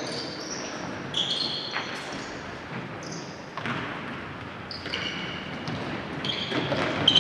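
Indoor court shoes squeaking in short, high squeals on a wooden gym floor as futsal players turn and stop, with a few thuds of the ball being kicked, echoing in the hall.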